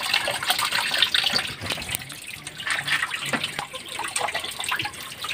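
Water running from a plastic tap into a basin, with irregular splashing as pieces of raw meat are washed by hand in a bowl of water.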